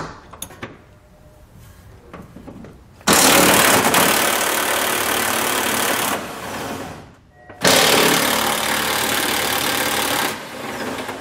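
A power wrench runs in two bursts of about three seconds each, after a few faint clicks. It is backing out the two rear overload bracket bolts while their nuts are held with a socket from inside the frame rail.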